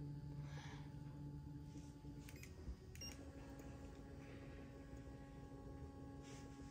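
Near silence: faint room tone with a steady low hum and a few soft clicks about two to three seconds in.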